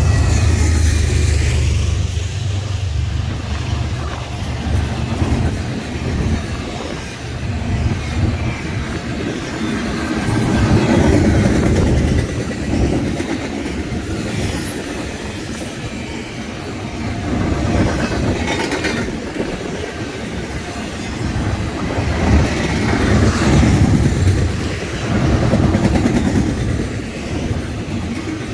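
BNSF freight train passing close by. A deep locomotive engine rumble in the first couple of seconds fades away, then the rail cars roll past with wheels clicking over the rail joints in a rising-and-falling rhythm.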